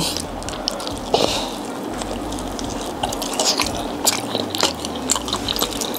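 Close-up mouth sounds of biting and chewing chicken wings, with many small wet clicks and crunches, over a steady low rumble of outside noise.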